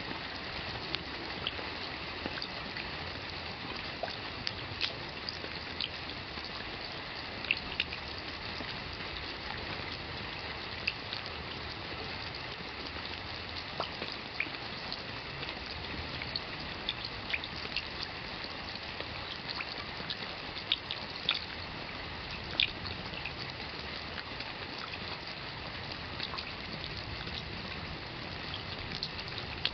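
Steady rain, with individual drops striking close by as sharp irregular taps over an even hiss.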